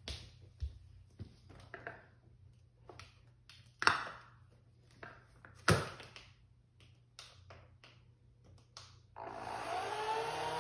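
Scattered light clicks and knocks, two of them louder about four and six seconds in. About nine seconds in, the motor of a Vileda Looper electric spray mop starts up, its whine rising as the round microfibre pads spin up, then running steadily.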